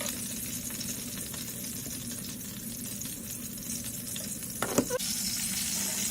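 Frozen pork pot stickers sizzling as they pan-fry in oil, a steady hiss, with a short cluster of clicks a little under five seconds in.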